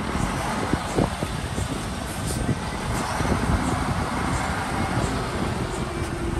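Shantui DH17B2 bulldozer at work, its diesel engine running steadily with irregular clanks and knocks mixed in.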